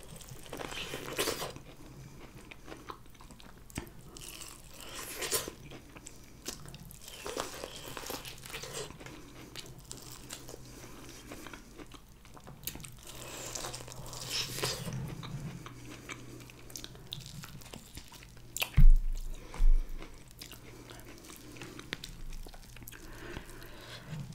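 Close-miked biting and chewing of corn on the cob: irregular crunches of kernels and mouth sounds, over a faint steady low hum. Two dull thumps, the loudest sounds, come about three-quarters of the way through.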